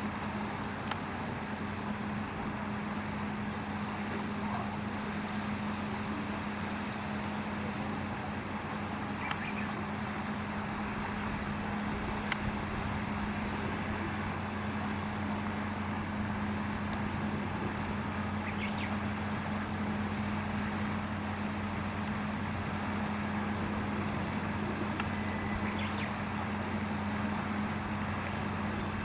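Steady low mechanical hum with a constant two-tone drone, unchanging throughout. A few faint short chirps come and go, and there is a single sharp click around the middle.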